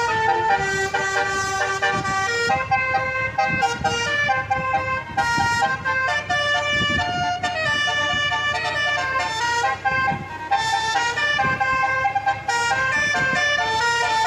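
Tour bus's telolet horn, a set of multi-tone air horns, playing a melody of short notes that step up and down in pitch, over the low rumble of the bus.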